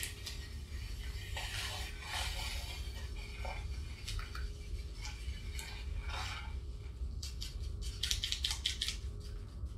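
Sand pouring from a plastic bag into a clear plastic dish: a soft grainy hiss of sand on plastic, mixed with crinkling and rustling of the bag. A quick run of crinkles near the end as the bag is shaken out.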